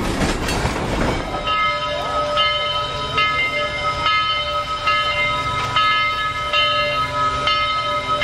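Steam locomotive bell ringing steadily, struck again a little more than once a second, over a low rumble from the locomotives. The first second or so is the louder rush and rumble of the steam train passing close by.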